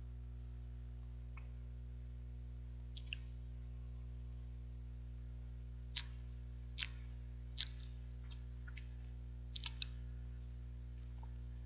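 Mouth sounds of someone eating soft steamed rice cake (baekseolgi): a few short, sharp wet clicks and lip smacks, three of them a little under a second apart about halfway through and a quick cluster near the end. A steady low hum runs underneath.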